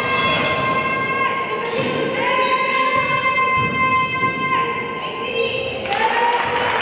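Basketball bouncing on a gym court. Over it runs a steady, held pitched tone with overtones, which sounds in long stretches, breaks off twice and comes back near the end.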